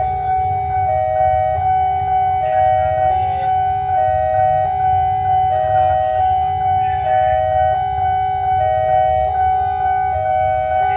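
Railway level crossing warning alarm: an electronic chime that keeps alternating between two notes over a held tone, repeating about every second and a half, over a steady low rumble.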